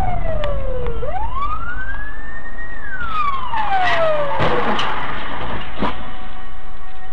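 Police car siren wailing, its pitch falling, then rising and falling again, over steady road rumble. About four to five seconds in, a burst of sharp bangs as the police car collides with a van, and another bang about a second later.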